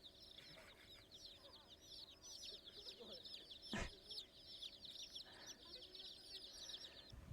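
Faint, dense chorus of chickens cheeping: many rapid, overlapping high chirps that stop shortly before the end, with one sharp click just under four seconds in.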